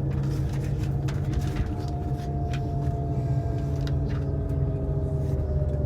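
Steady running rumble heard from inside a moving passenger vehicle, with a faint whine that slowly falls in pitch partway through and scattered small clicks and rattles.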